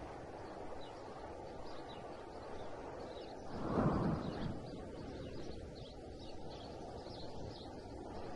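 Outdoor woodland ambience: a steady low rumble with faint, repeated high bird chirps, and one louder swell of low rushing noise about four seconds in.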